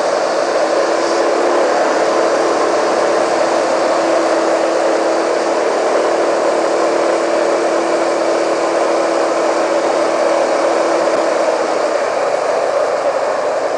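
Honda PCX scooter riding along, with steady wind and road noise rushing over the handlebar-mounted camera and the scooter's engine humming steadily underneath.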